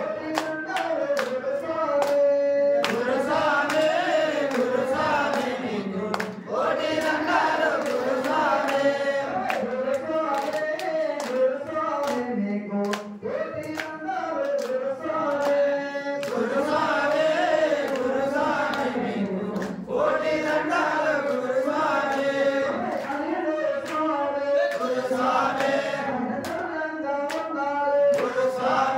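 A group of devotees singing an Ayyappa devotional song together in one melodic line, with hand claps throughout.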